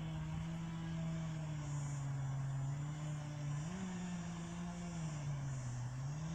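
A tree crew's small engine running continuously, its pitch sagging slowly under load, jumping back up about two-thirds of the way in, then dipping and recovering again near the end.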